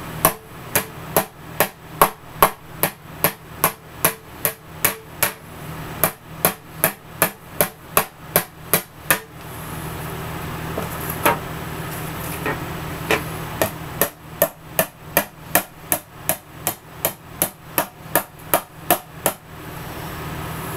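Hammer striking a bent metal license plate held on a wooden post, reshaping it: rapid, even blows at about three a second, a pause of a few seconds with only a few strikes, then a second run of blows.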